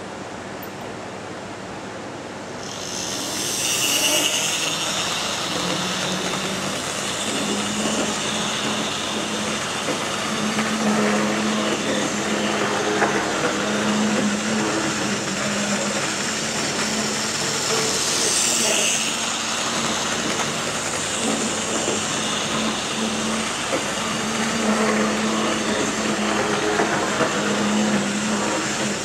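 Wrenn OO-gauge model tank locomotive and coaches running on the layout's track: a steady electric-motor hum with the rattle of wheels on the rails, growing louder about three seconds in.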